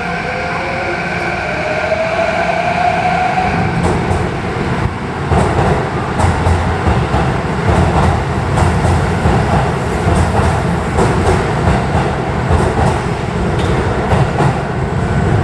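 Electric train pulling away from an underground platform: its traction motors whine with a tone rising in pitch, then after about four seconds a heavier rumble of wheels on rail with clicking over the joints builds up and carries on.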